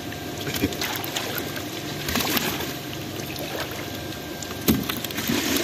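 Water splashing and dripping as a long-handled landing net is drawn through a pond and lifted out with a fish in it, with a few sharper splashes, over a faint steady hum.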